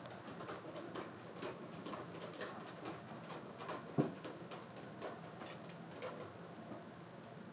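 Plush walking toy dog's battery-driven mechanism clicking and ticking irregularly, a few light clicks a second, with one sharper click about four seconds in.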